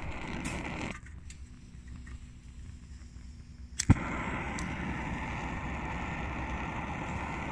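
Old brass-tank vaporising hiking stove burner running with a steady hissing roar that cuts off about a second in, then a sharp pop near the middle as the burner lights again, after which the steady roar resumes.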